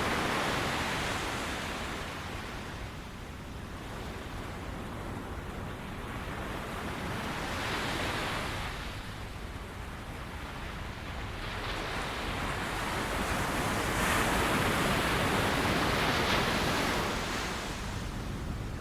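Ocean surf breaking and washing up on a beach, a hiss of water that swells and fades several times as each wave comes in and draws back.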